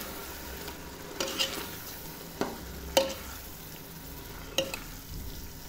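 Steel ladle stirring chicken and masala in a pressure cooker pot, with several sharp scrapes and knocks of the ladle against the pot, the loudest about three seconds in, over a faint sizzle of frying.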